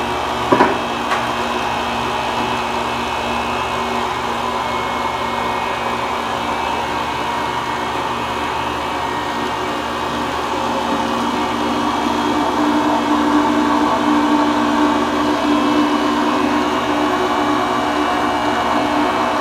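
Electric chum grinder running steadily as it grinds frozen fish into chum, with a sharp metal knock about half a second in. It gets louder, with a stronger hum, about twelve seconds in.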